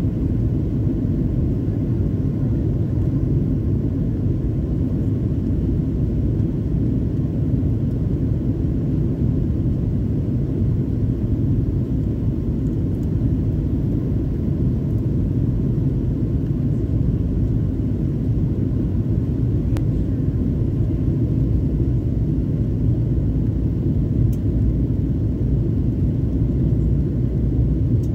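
Steady low rumble inside an airliner cabin: a Boeing 737-900's CFM56 turbofans and rushing airflow on final approach with flaps extended. The noise holds even throughout, with no touchdown thump.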